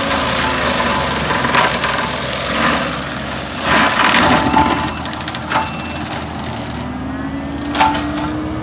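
Kubota skid steer's diesel engine running under load while its forestry mulcher head grinds brush and trees, with repeated wood cracking and splintering, heaviest about four seconds in. The engine pitch climbs slowly near the end.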